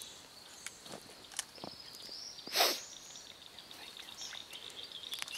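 Quiet outdoor pond-side ambience: a steady faint high-pitched tone with a few short bird chirps and scattered faint clicks, broken by one brief louder rush of noise about two and a half seconds in.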